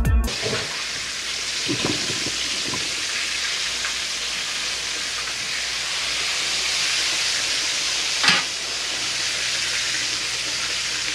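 Floured, battered chicken pieces frying in hot canola oil in a cast-iron skillet: a steady, loud sizzle. There are a few soft knocks about two seconds in and one sharp tap a little after eight seconds.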